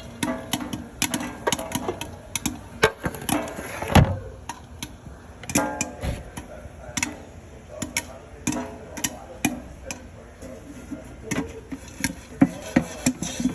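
Popcorn kernels popping: irregular sharp pops, a few to several a second, with one louder pop about four seconds in.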